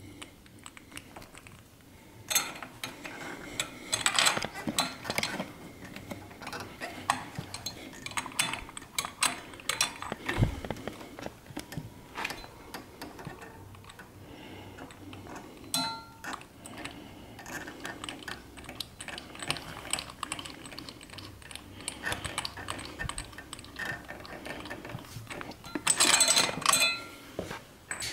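Metal clinks, taps and scrapes of a spark plug and a plug wrench being handled and fitted at a motorcycle's V-twin cylinder head. Scattered sharp clicks run throughout, with a dense run of them near the end.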